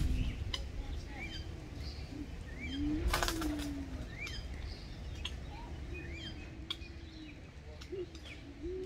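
Doves cooing in several low, drawn-out coos, with small birds chirping in short up-and-down notes between them. A brief rustling burst comes about three seconds in.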